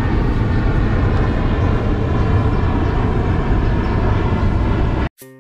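Loud, steady outdoor rumble and hiss, heaviest in the low end, like traffic or wind on the microphone. It cuts off suddenly near the end, and plucked ukulele notes begin.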